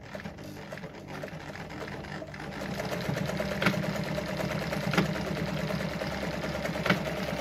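A Brother Pacesetter ZZ2-B702F household sewing machine runs steadily, stitching through denim on the D step of its four-step automatic buttonhole. It picks up speed and gets louder about two to three seconds in. A few sharp clicks stand out over the running.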